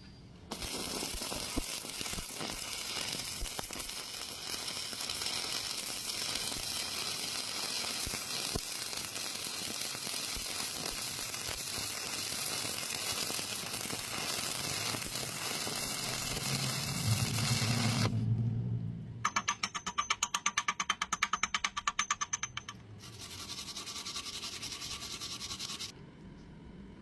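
Electric arc welding: a steady crackling hiss that starts suddenly and runs for most of the clip. Near the end it gives way to a fast pulsing of about five beats a second, then a shorter hiss that cuts off.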